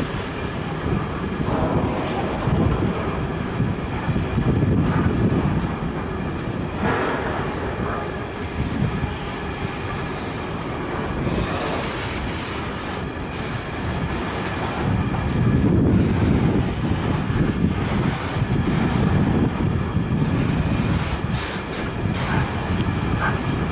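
Container freight train rolling past: the wagons' wheels rumble and clatter on the rails, the sound swelling and fading in waves as the wagons go by.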